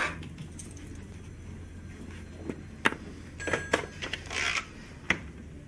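Low room tone with a few scattered sharp clicks and light rattles, and a short rustle about four and a half seconds in.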